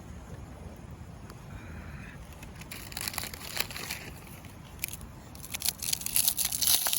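Plastic packaging crinkling as it is handled, in two spells, the second louder, starting about three seconds in.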